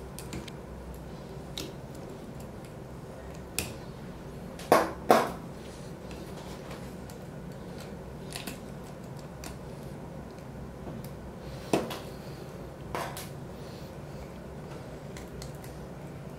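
Steel dental extraction instruments clicking and clinking against teeth and metal during a cat's tooth extraction. There are scattered sharp clicks, the loudest a quick pair about five seconds in, over a steady low hum.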